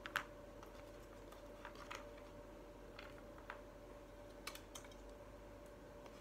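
Scattered light clicks and taps of small shape blocks being picked off a pattern board and put down on a table, over a faint steady hum.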